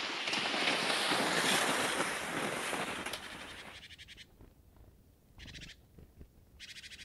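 Cross-country skis sliding and scraping on crusty snow close by, a hissing noise with light clicks, fading out after about three seconds. Then, in the quiet, two short rapid rattles about a second apart.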